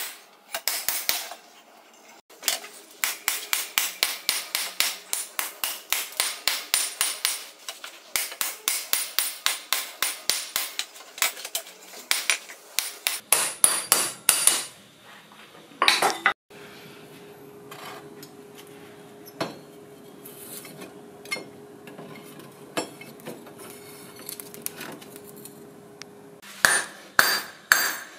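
Hammer blows forging a piece of suspension coil spring steel: quick strikes about four a second in a long run. About halfway through they give way to a steady hum with a few faint ticks for some ten seconds, and the hammering starts again near the end.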